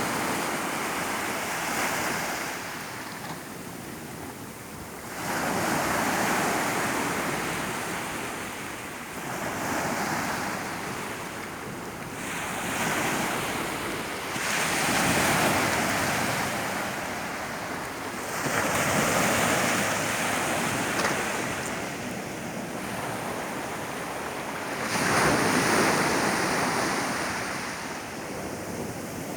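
Mediterranean sea waves breaking and washing up on the beach, each surge swelling and ebbing about every four to six seconds.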